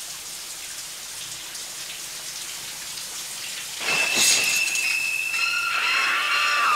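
Shower spray hissing steadily. About four seconds in, a sudden swish comes as the curtain is torn open, and high, shrieking violin stabs of a string score begin. They hold on a piercing note, with more strings joining shortly after.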